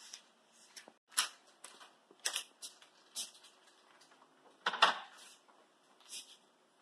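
Scattered sharp clicks and knocks of a refrigerator being opened and a plated cake being put inside, the loudest a double knock about five seconds in.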